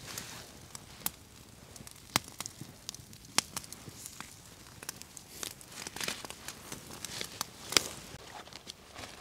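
Wood campfire crackling, with irregular sharp pops of burning sticks over a soft hiss; the loudest pop comes about three-quarters of the way through.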